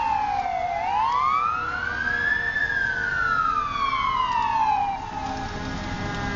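Emergency vehicle siren wailing in one slow cycle: it rises for about two seconds and falls for about two and a half. About five seconds in it gives way to a steady drone with several even tones.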